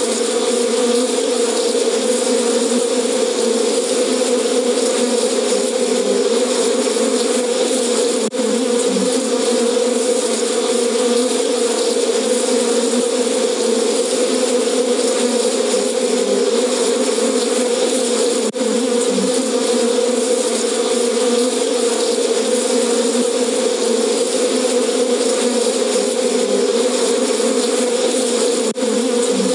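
Recording of angry bees buzzing steadily, played by an elephant-deterrent alert system once it has detected an elephant. The buzz dips very briefly three times, about ten seconds apart.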